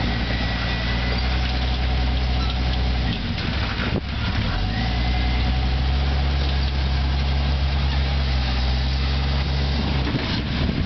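Jeep engine running steadily at low revs while the Jeep crawls over a boulder; the engine note drops out briefly about three seconds in and comes back after a sharp click at about four seconds.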